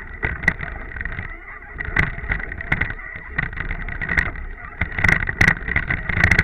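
Water rushing and splashing against the bow of a racing rowing eight under way, with wind on the bow-mounted microphone. Irregular sharp louder splashes come through, several close together near the end.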